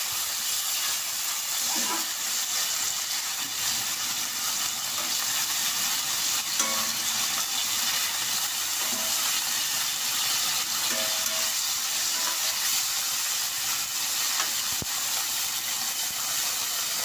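Marinated pork steak slices sizzling steadily as they fry in olive oil and butter in a nonstick pan, with a few light scrapes and taps of a utensil turning them. The meat is fried in a small batch so it sears dry rather than releasing water and stewing.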